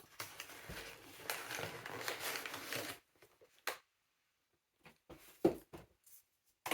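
Rustling of a parcel's packaging as it is handled, for about three seconds, then a few separate light knocks and taps.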